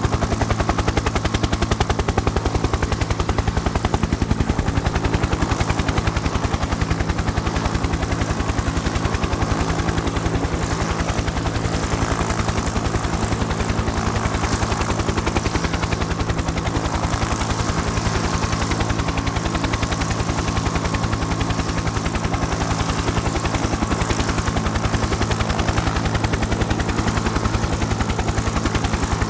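Helicopter in flight heard from inside the cabin: a rapid, even beat of the rotor blades over a steady engine drone.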